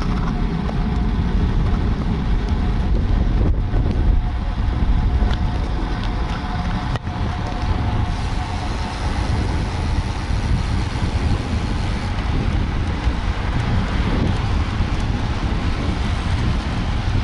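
Wind rushing over the microphone of a road bike's action camera at speed, a steady low rumble mixed with tyre and road noise.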